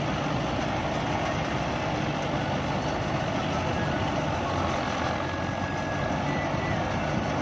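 Balkar B-525 combine harvester mounted on a Mahindra tractor, running steadily as it harvests: the tractor engine and the combine's cutting and threshing machinery make a continuous, even mechanical din.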